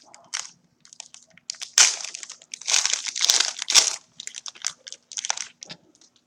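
Plastic wrapper of a trading-card pack crinkling and crackling as it is handled and torn open, loudest in a burst a couple of seconds in, then lighter rustles.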